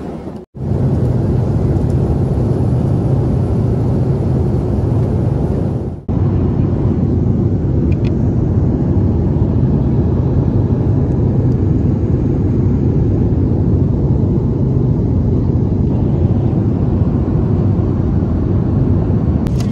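Steady in-flight cabin noise of an Airbus A330-300 airliner: the even, low noise of engines and airflow heard from a passenger seat. It drops out briefly twice, about half a second in and about six seconds in.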